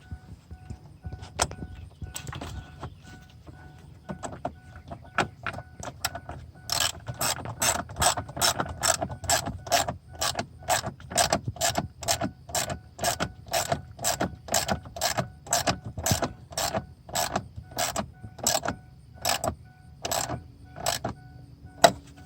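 Hand socket ratchet clicking as it tightens a battery terminal nut, a few scattered clicks at first, then a steady run of about two to three clicks a second from about six seconds in that stops shortly before the end.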